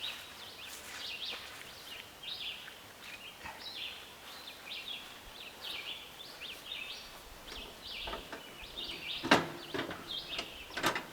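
Birds chirping over and over, short high calls, with two sharp knocks, one about nine seconds in and a second near the end.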